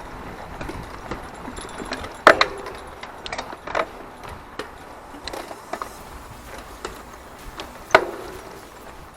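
Mountain bike rattling and clattering over rough, rooty trail: chain and frame chatter under the tyres' noise on dirt. Two sharp metallic clanks with a short ring, one about two seconds in and one near the end, typical of the chain slapping the frame over a bump.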